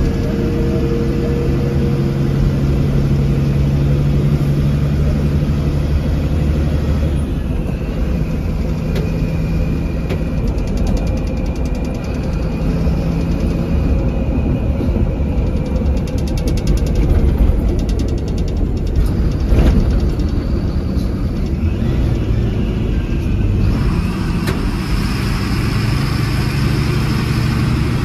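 Bharat Benz coach's diesel engine running under way with road and tyre noise, heard from inside the bus's front cabin; its pitch shifts now and then. A single knock comes about two-thirds of the way through.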